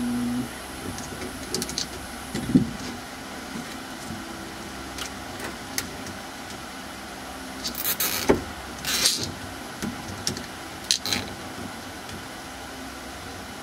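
Scattered clicks and knocks with a few short scraping, rustling bursts from hands working on wiring and hose inside a car, over steady background noise. The sharpest knock comes about two and a half seconds in, and a cluster of scrapes comes around eight to nine seconds in.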